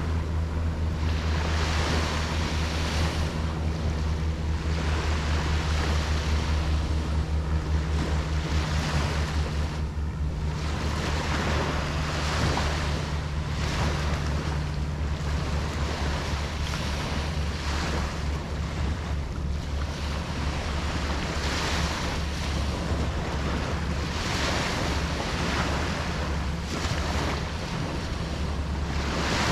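Ocean surf: waves breaking and washing in, one swell after another every couple of seconds, over a steady low rumble.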